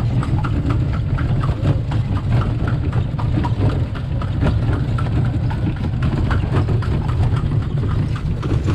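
Horse-drawn calesa rolling over cobblestones: the horse's hooves clip-clop against a steady low rumble and rattle from the cart's wheels.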